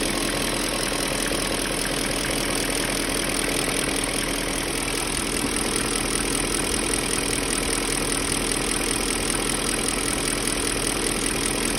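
BMW M62 4.4-litre V8 idling steadily with a knock that the owner suspects may be a hydraulic lifter (lash adjuster).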